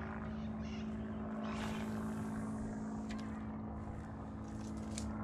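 Steady mechanical drone of a motor holding one unchanging pitch, with a brief hiss about two seconds in.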